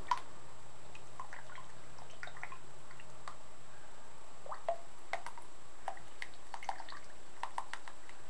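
Small water splashes and drips from two Roborovski dwarf hamsters swimming in shallow water, heard as scattered short plinks. There is one louder plink just after the start and clusters of them around the middle and near the end.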